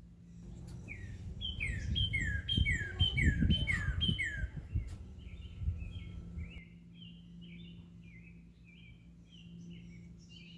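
Songbirds calling: a run of about six repeated down-slurred whistled notes, then a steady quicker series of short chirps. A low rumble sits under the first half.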